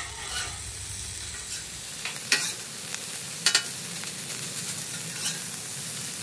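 Cold cooked rice frying in butter on a hot steel Blackstone griddle: a steady sizzle. A metal spatula chops and scrapes the rice against the griddle top, giving a few sharp clacks about two, three and a half, and five seconds in.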